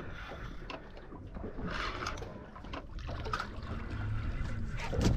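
Water lapping and trickling against the side of a fishing boat over a steady low rumble, with a few light clicks and knocks.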